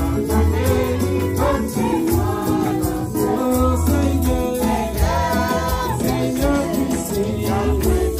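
Praise-and-worship music: voices singing over a band with deep bass notes and a steady percussion beat.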